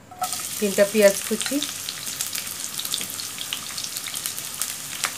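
Chopped onions dropped into hot oil in a non-stick wok: a sizzle starts suddenly as they go in, then fries on steadily with many small crackles while they are stirred.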